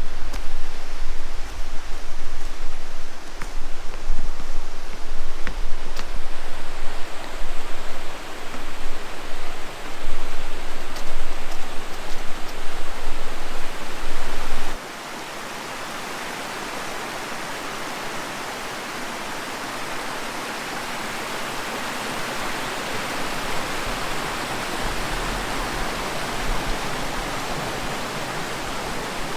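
Creek water rushing: a steady, even rush of flowing water. For the first half it is louder, with a low rumble and a few faint clicks. About halfway through it changes abruptly to a softer, steadier rush.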